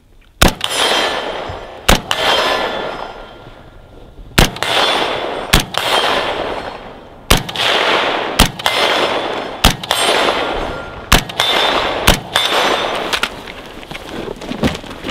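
Semi-automatic rifle shots from a 16-inch carbine, fired one at a time about nine times at one- to two-second spacing. Each crack is followed by a long echo and a ringing clang from the steel targets being hit.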